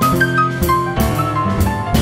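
Jazz piano trio playing an instrumental passage: acoustic grand piano carrying a melody line over plucked upright bass and drum kit with cymbal strikes.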